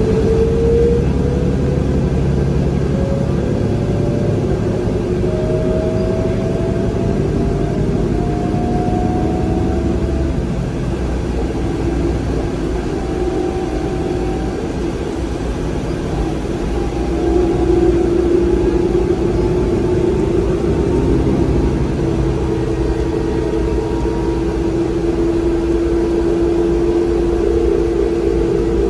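Interior ride noise of a New Flyer DE60LFR diesel-electric hybrid articulated bus under way, its Cummins ISL six-cylinder diesel and Allison EP50 hybrid drive running under a steady rumble. Over the first ten seconds a whine climbs in pitch as the bus picks up speed. From about halfway it holds a steady tone.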